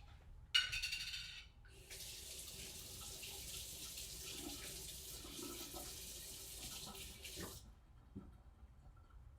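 A kitchen faucet running steadily for about six seconds; it comes on about two seconds in and is shut off abruptly near the end. It is preceded by a brief, loud clatter about half a second in.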